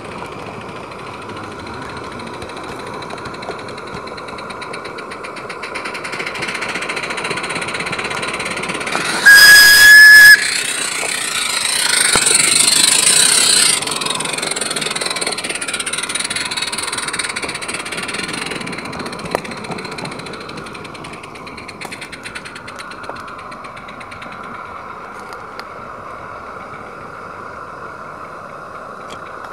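Live-steam narrow-gauge garden railway locomotive running with a steady hiss, and one loud steam whistle blast of about a second, around nine seconds in, followed by a louder rush of noise for a couple of seconds.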